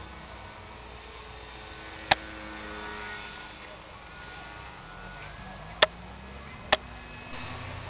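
Distant RC model airplane's small electric motor whining faintly over steady outdoor noise, its pitch stepping up slightly with throttle near the middle. Three sharp clicks stand out, one about two seconds in and two close together near the end.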